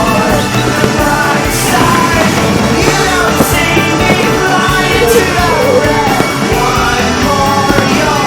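Rock music with a singing voice over a steady full band.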